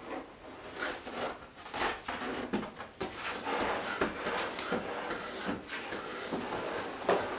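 Irregular knocks, scrapes and rustling as people press and move against a wooden door frame and walls in a narrow stairwell.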